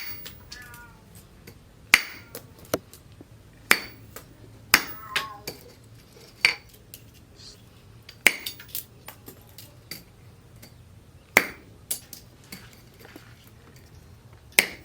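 Hammer blows on metal, struck singly and unevenly, each a sharp clink with a short ring.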